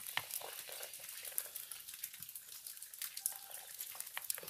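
Cowboy coffee just at the boil in a metal coffee pot over a wood fire, stirred with a wooden stick: a faint bubbling, sizzling hiss with scattered small clicks.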